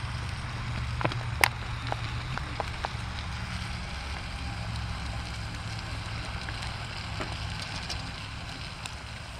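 Sliced onions, bell peppers and carrots sizzling in oil in a cast-iron dutch oven, with a few sharp pops in the first three seconds over a steady low rumble.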